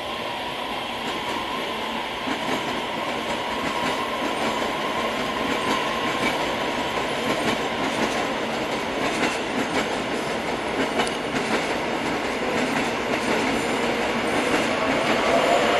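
Korail Nooriro electric multiple-unit train pulling out and running past close by, its wheels clicking over the rail joints as it picks up speed. It grows steadily louder, and a rising whine comes in near the end.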